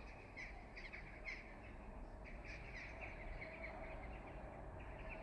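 Birds calling in short, clipped calls, a few a second, over a faint, steady low rumble.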